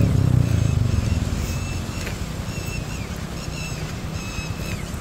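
Mahindra Scorpio SUV's engine running on an off-road track, louder at the start and then settling to a steady rumble, with wind noise. A short high chirp repeats over it every second or so.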